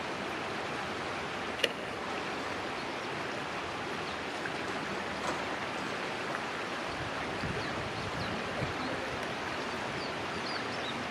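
Steady rushing outdoor background noise, tagged as a stream. A single sharp click comes a little under two seconds in, and a few faint, short, high chirps come near the end.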